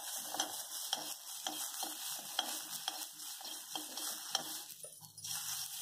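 Perforated metal ladle stirring and scraping damp sorghum grains around a hot metal kadai: rapid repeated scrapes, about three a second, over a steady hiss. The grains are heating but not yet popping.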